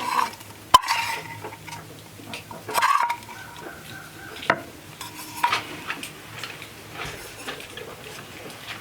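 Stirring and scraping in a cooking pot, with a utensil clinking against its side; two sharp clinks, the loudest about a second in and another about halfway through.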